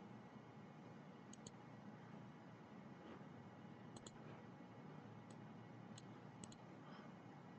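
Computer mouse clicking in faint room hiss: a quick double click a little over a second in, another about four seconds in, then single clicks and one more double click.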